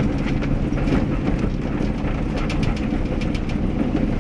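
An old motorhome driving, heard from inside the cab: a steady low engine and road drone with quick rattling and clicking over it.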